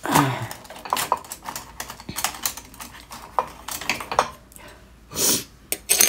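Irregular light clicks and clinks of kitchen things being handled, with a brief rush of noise about five seconds in.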